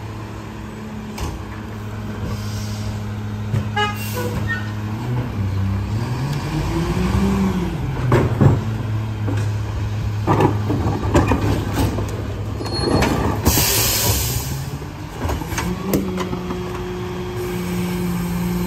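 McNeilus rear-loader garbage truck's diesel engine idling, then revving as the truck pulls forward about six to eight seconds in, with a short air-brake hiss about thirteen seconds in as it stops. Near the end the engine speeds up and holds as the rear cart tipper lifts a trash cart.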